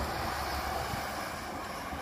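Cat 312B excavator's diesel engine running steadily with a low rumble as it swings back from dumping a bucket of dirt into a dump truck.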